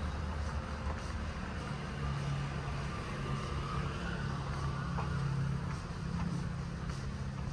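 A motor vehicle's engine running close by, a steady low hum over street noise.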